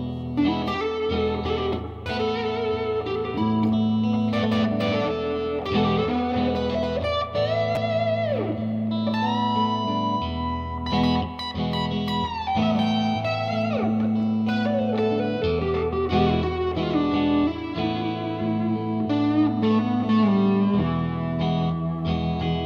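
Reverend electric guitar played through an amp with reverb, mixing ringing chords and single-note lines. Some notes waver, and several slide down in pitch.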